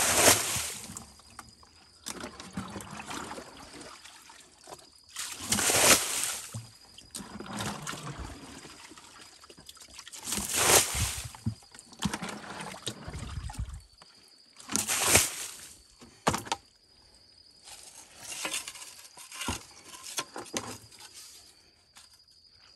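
Muddy spring water being bailed out of a dug hole with a plastic bucket: a splash and pour about five times, roughly every four to five seconds, with quieter water sounds in between.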